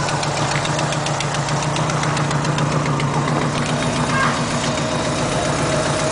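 Alfa Romeo 33 flat-four engine idling steadily with a fast, even ticking over the hum: the suspect engine noise.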